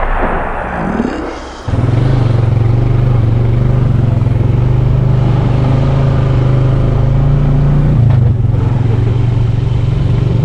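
Vehicle engine running steadily, cutting in suddenly about two seconds in after a fading sound; its note dips briefly near the end.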